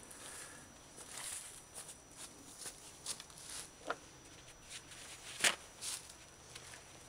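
Footsteps on dry leaves, then light rustling and handling noises as a spark-plug thread chaser is wiped off with a paper towel, with a sharp click about four seconds in and a louder one about a second and a half later.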